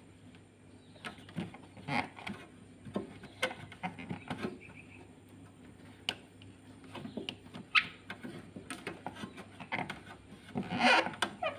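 Handling noises: irregular light clicks, knocks and brief scraping, with a louder cluster of rattling and rubbing near the end, over a faint steady hum.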